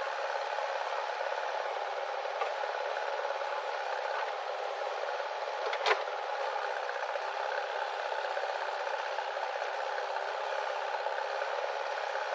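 Steady mechanical rattling noise from a running machine, with one sharp click about six seconds in.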